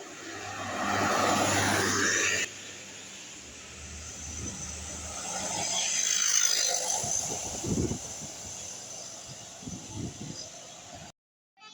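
Buses passing along a road, the noise of engine and tyres swelling and fading as each goes by. The first pass cuts off abruptly about two and a half seconds in, and the sound drops out completely near the end.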